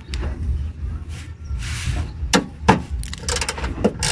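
Socket wrench being worked on the 12 mm bracket bolts under a car: two sharp metallic clicks in the second half, then a quick run of ratchet clicks, as the bolts are loosened.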